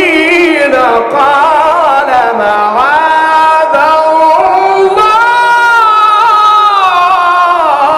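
A man's voice in melodic Quran recitation (tajwid), drawing out long ornamented notes that glide up and down, with one note held steady for a couple of seconds about five seconds in.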